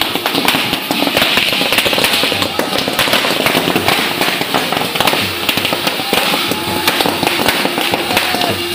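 Fireworks going off: a ground fountain firework hissing steadily as it sprays sparks, with rapid crackling pops on top.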